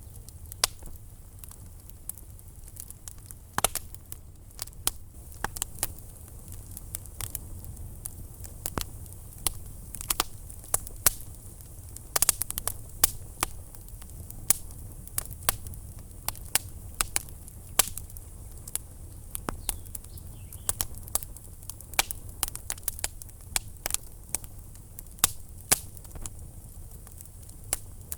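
Wood fire burning in a fireplace: irregular sharp crackles and pops over a steady low rumble of the flames, with a few louder snaps.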